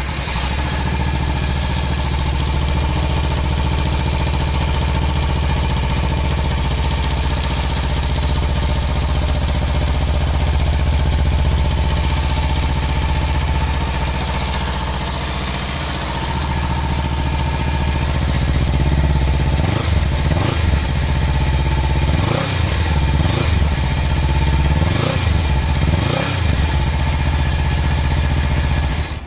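Kawasaki Ninja 300's parallel-twin engine through its stock exhaust, idling steadily, then blipped up and back down half a dozen times in quick succession in the last third before cutting off suddenly.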